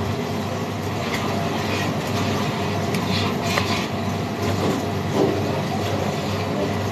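Steady hum and rush of a commercial kitchen extraction hood fan, with a few faint knocks of a chef's knife cutting through bread onto a plastic cutting board.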